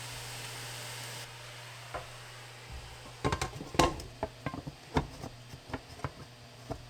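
Kitchen clatter: a run of irregular clinks and knocks of dishes and utensils being handled, starting about three seconds in. Before that there is a steady hiss that cuts off abruptly about a second in, and a low steady hum runs underneath.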